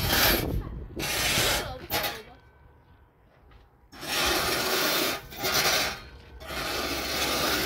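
Repeated rough scraping strokes, each about a second long: two, then a pause of a second and a half, then three more.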